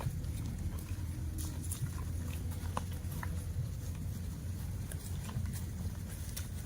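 Cattle in a grass pasture: scattered soft clicks and rustles over a steady low rumble, with no mooing.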